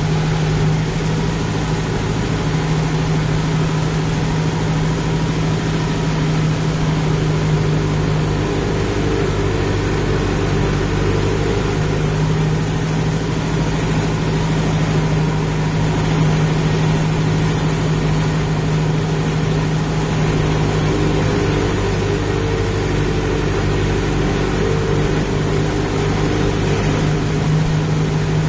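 Kubota MU5502 tractor's four-cylinder diesel engine running steadily under load as it drives a rotavator through wet paddy mud, heard loud and close from the driver's seat.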